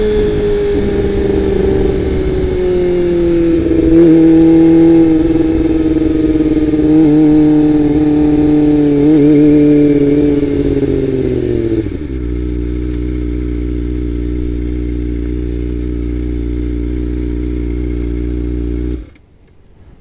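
Kawasaki Ninja ZX-25R's 249 cc inline-four through a Best3 aftermarket exhaust, running at high revs with the pitch easing slowly down. About twelve seconds in the revs drop sharply to a steady idle, and the engine cuts off suddenly near the end.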